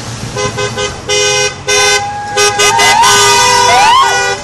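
Vehicle horns honking in a run of short toots and then longer blasts, joined from about halfway by an electronic siren's rising and falling whoops and yelps.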